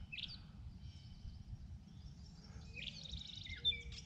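Small birds chirping and trilling over a low, steady outdoor rumble, with a quick series of calls about three seconds in.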